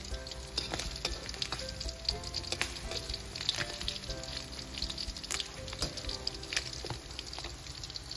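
Fish frying in hot oil in a pan: a steady sizzle with many quick crackles and pops. The fish is well fried and done.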